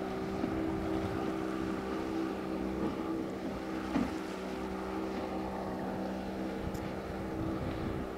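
Outboard motor of a small motorboat running steadily at speed, a constant drone with a mix of steady tones, with wind on the microphone.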